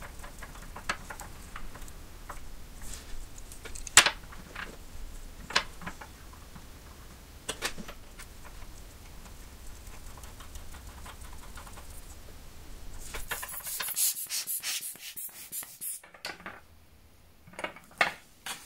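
Small screwdriver clicking and scraping on screws in a brass carriage clock case frame: scattered light metal clicks and taps, one sharper click about four seconds in. A few seconds of rustling hiss follow about two-thirds of the way through, then a couple more clicks near the end.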